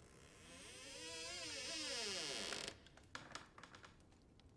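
Horror-film sound effect: a hissing swell with a wavering, pitched tone that bends up and down. It builds for about two seconds and then cuts off suddenly, followed by a few faint clicks.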